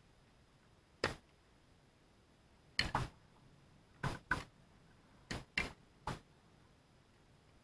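Tennis ball struck by rackets and bouncing on a hard court during a rally: a series of sharp pops, about a second apart at first, then several in quick pairs.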